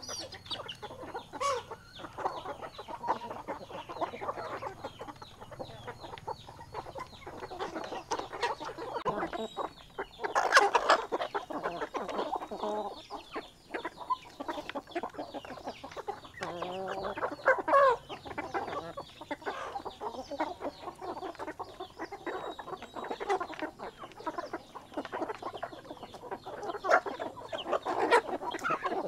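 A flock of hens and roosters clucking, with many short, overlapping calls. Two louder, longer calls stand out, about a third of the way in and again a little past halfway.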